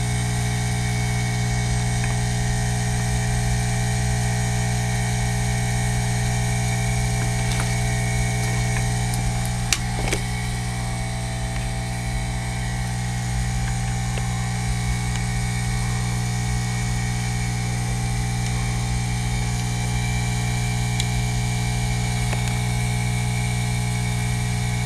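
Steady electrical hum with evenly spaced low tones that holds unchanged throughout, with a couple of faint clicks of handling about ten seconds in.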